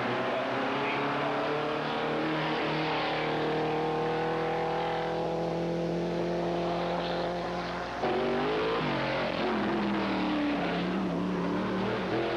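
Race car engine running hard up a hillclimb course, its note rising slowly over several seconds. About eight seconds in the note breaks abruptly, then climbs again as the car accelerates.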